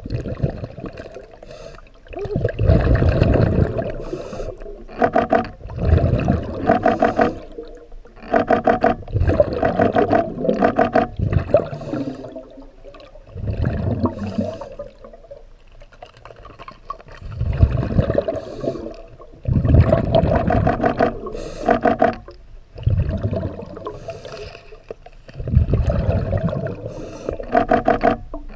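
Scuba diver's regulator breathing heard underwater: rushes of exhaled bubbles in loud bursts every few seconds, with quieter stretches between breaths.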